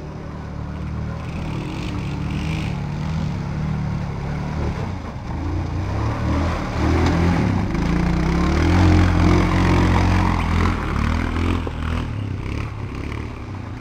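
Quad bike (ATV) engine revving and labouring as it churns through deep mud. It grows louder and peaks about seven to ten seconds in as the quad comes close.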